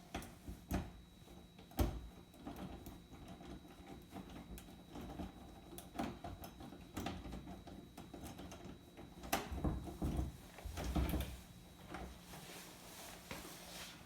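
A bedroom door lock being picked: irregular small clicks, scrapes and rattles of the picking tools in the lock, with a few louder knocks about two seconds in and again around nine to eleven seconds.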